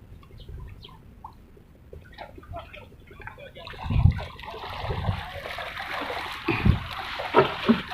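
Water splashing and sloshing, faint at first and getting louder and fuller about halfway through, with a few low thumps.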